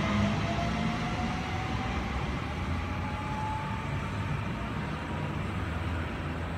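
Sydney Trains Waratah double-deck electric train pulling away, its traction motors giving a slowly rising whine as it gathers speed, over a low rumble of wheels on track that slowly fades as it draws off.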